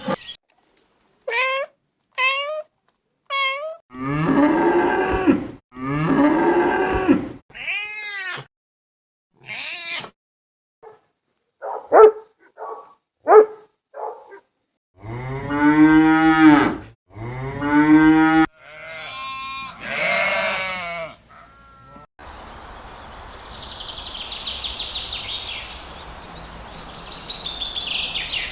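A string of separate farm-animal calls cut one after another. It includes cattle mooing, with two long low moos about halfway through, and shorter, higher calls earlier on. Near the end comes a stretch of steady hiss-like background with high chirping.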